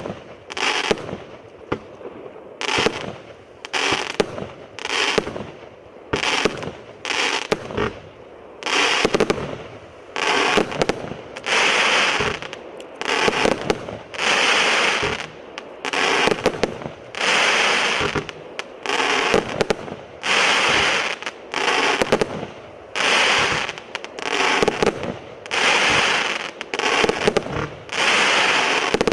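Evolution 'Atlas' firework firing a rapid series of shots, about one a second. Each shot breaks as a short, loud burst of hiss and crackle.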